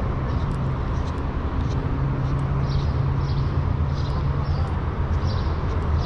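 Steady rumble of road traffic, with low engine hums drifting in pitch, and faint short high chirps every half second or so.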